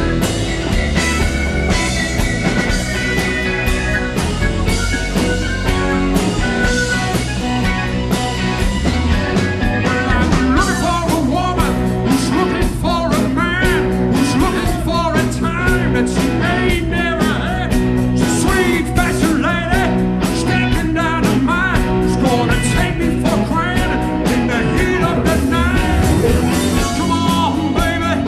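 Live rock band playing: electric guitar, keyboard, bass and drum kit. A male lead voice comes in singing about ten seconds in.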